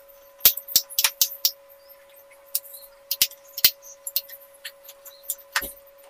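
Irregular hard plastic clicks and knocks as the white filter housings and cartridges of an RO/DI water purifier are handled, thickest in the first second and a half, with a faint steady tone underneath.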